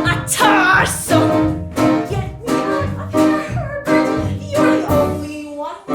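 Musical-theatre song accompaniment with plucked strings playing an even beat of about two notes a second.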